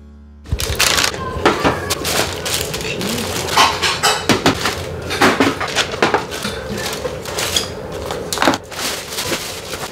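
Plastic carrier bag rustling and crinkling as packaged convenience-store foods are pulled out, with knocks and clatter of cups, cans and packs set down on a metal tray. Starts about half a second in.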